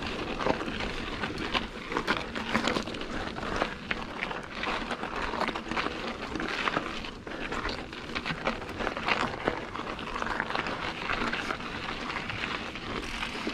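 Diamondback Recoil mountain bike rolling over a rough, rocky trail: tyres crunching on gravel and stones, with irregular clicks and rattles from the bike.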